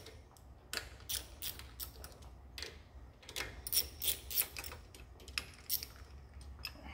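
Irregular sharp metallic clicks and clinks of a socket wrench working the bolts of a steel valve-depressing tool bar on an aircraft engine's rocker box, and of the bar being handled as it comes off.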